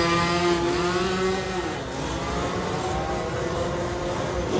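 Small motorbike engines revving hard down a drag strip, several at once, with rising engine pitch over the first second and a half, then a steadier, fainter engine drone as the bikes pull away.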